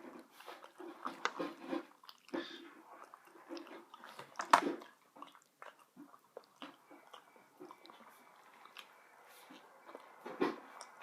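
A person chewing and biting into a rotisserie chicken wing, with irregular wet mouth smacks and clicks; the loudest bite comes about four and a half seconds in.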